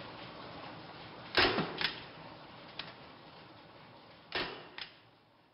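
A few soft knocks and clicks over a faint hiss, spaced irregularly, with the hiss fading out just before the end.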